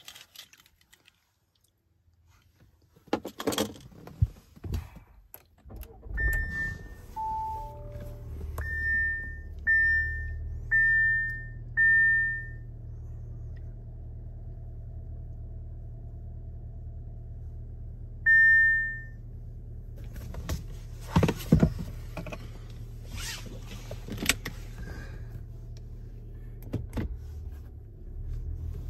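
Audi Q7's engine starting about six seconds in and then idling steadily. Over the idle come short electronic chimes from the car, several about a second apart and one more later. Clicks and handling noises come before the start and again in the last third.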